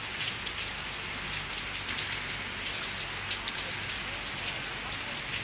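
Steady rain falling, with many separate drops ticking close to the microphone.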